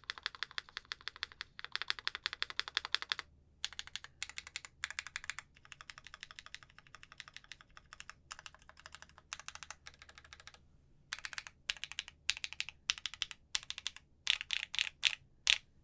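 Fast typing on a gasket-mounted Iskar prototype 65% custom mechanical keyboard with lubed KTT Halu Halo switches, a polycarbonate plate and GMK keycaps. The keystrokes come in quick bursts with short pauses, and a few louder separate strokes come near the end.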